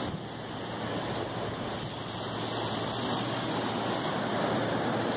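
Steady wash of Pacific surf breaking on the jetty's rocks, mixed with wind noise.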